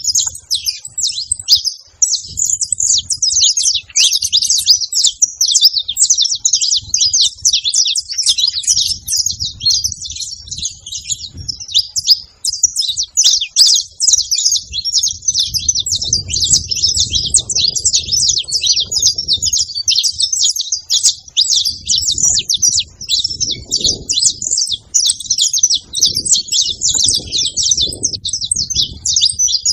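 Many saffron finches chirping and singing together in a dense, continuous chorus of rapid high chirps.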